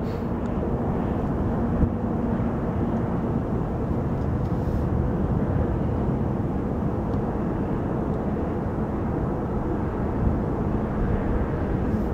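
Lockheed C-5 Galaxy's four General Electric TF39 turbofan engines at takeoff power, a steady low rumble with a faint steady hum in it.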